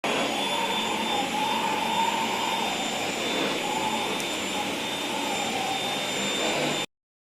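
Dyson vacuum cleaner running steadily, a rush of air with a constant high motor whine on top, cutting off suddenly near the end.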